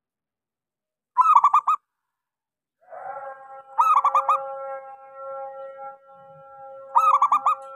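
Zebra dove (perkutut) cooing: three short bursts of quick rolling notes, about a second in, near four seconds and near seven seconds. A steady humming tone runs underneath from about three seconds on.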